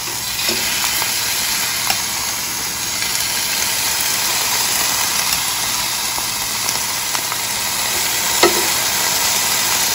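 Marinated pork skewers sizzling steadily on the hot grill grate of a Ninja Foodi indoor grill, with a few light clicks of metal tongs moving them.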